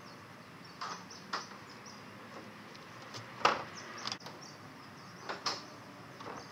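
Homemade plywood door on a box truck's rear opening being handled and swung shut: a scattering of wooden knocks and bumps, the loudest about halfway through.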